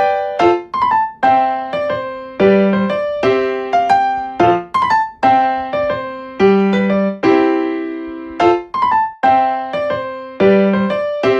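Background music: a keyboard playing a light melody of struck notes that ring and fade, several notes a second.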